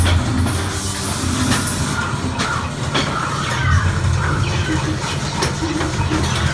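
Haunted-house shooting gallery attraction running its spooky sound effects: a steady low rumble with scattered clicks and clatter.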